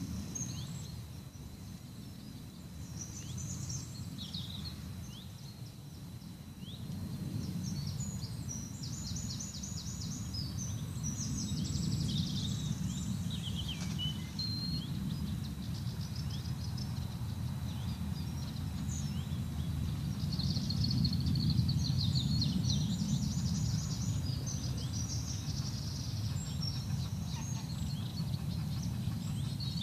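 Several songbirds singing, with repeated fast trills and chirps, over a steady low rumble that swells about a third of the way in.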